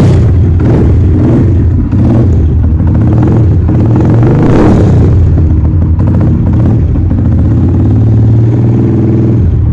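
Honda CG125's single-cylinder four-stroke engine running loudly through a custom-made dual exhaust, revved up in short blips several times in the first half, then held at a steady run; it dips briefly near the end.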